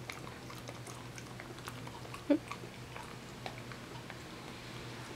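Cat chewing a treat held out by hand: a run of small crunches and clicks. One brief, louder pitched sound a little over two seconds in.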